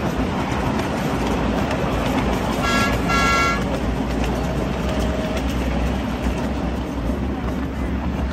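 Miniature passenger train running along its track with a steady rumble; about three seconds in, a horn gives two short toots, the second a little longer.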